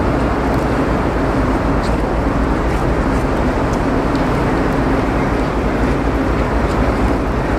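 Steady drone of a ferry under way: a constant low engine hum under an even rushing noise.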